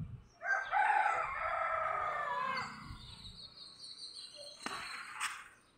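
One long animal call of about two seconds, falling slightly in pitch at its end, followed by a fainter high steady note and a short sharp sound near the end.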